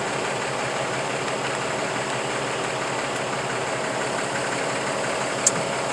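A truck engine idling steadily, with a single short click near the end.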